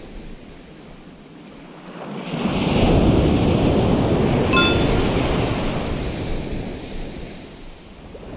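Small surf breaking on a sandy beach: one wave builds about two seconds in, washes up loudly and fades away over several seconds, with wind buffeting the microphone. A brief high-pitched click sounds midway through the wash.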